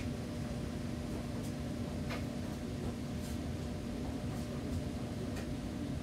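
Heavy rain heard from indoors through a closed window: a steady rushing noise over a steady low hum, with a few faint ticks of drops.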